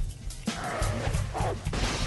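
Dramatic soundtrack music under fight sound effects: a low rumble and several sudden hits.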